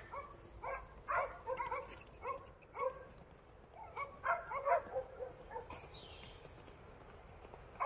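A dog whining and yipping in short, pitched cries that come again and again at uneven intervals.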